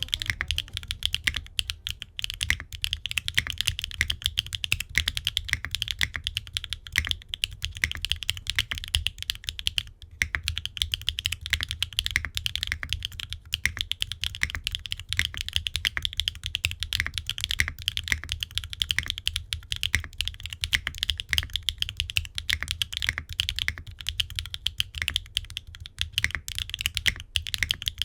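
Steady, fast typing on a gasket-mounted Qwertykeys Neo65 mechanical keyboard with HMX linear switches, an aluminium case and plate, no foam and ABS double-shot keycaps: a continuous run of keystrokes, each with a bright click and a low thud beneath.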